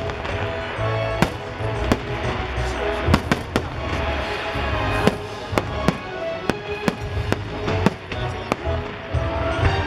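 Fireworks bursting in quick succession, more than a dozen sharp bangs, over loud show music.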